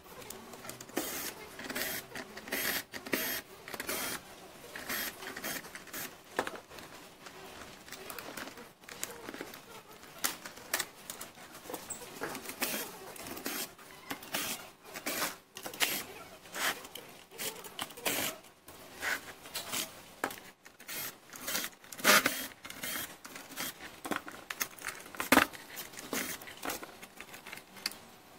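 Irregular clicks, taps and rattles of hard plastic and small metal parts as an ILIFE B5 Max robot vacuum is handled and taken apart, its battery cover unscrewed and the battery lifted out. Two sharper knocks stand out in the second half.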